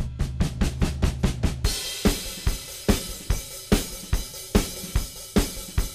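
Intro music with a drum-kit beat: quick even hits for about the first second and a half, then the full kit comes in with snare, bass drum and cymbals.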